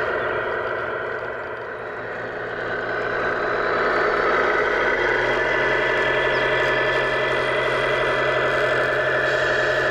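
Engine sound of a radio-controlled Tamiya Grand Hauler semi truck running steadily as it drives, dipping in loudness about two seconds in, then steady and a little louder as the truck comes close.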